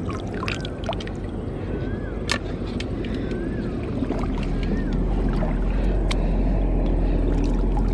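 Steady low rumble and hiss of wind on the microphone and flowing shallow river water, with small splashes and clicks of a hand groping among the stones underwater. The rumble grows a little louder about five seconds in.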